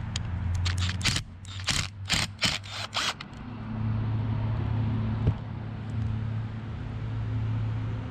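A quick run of sharp clicks and taps in the first three seconds as a cordless drill/driver backs out the small ground screw on a fuel pump hanger and the pump and its parts are handled. A steady low hum runs underneath, with one more click a little after five seconds.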